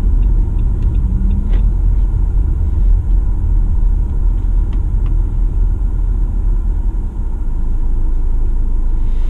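Steady low rumble heard from inside a car in strong wind, the wind buffeting the car and the microphone.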